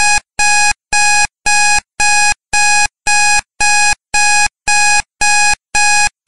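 Electronic timer alarm beeping in an even rhythm, about two short tonal beeps a second, signalling that the countdown has reached zero.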